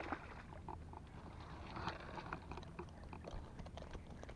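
Small splashes, clicks and rustles as a climbing perch (puyu) is hooked and swung out of shallow ditch water on a fishing rod, over a steady low rumble.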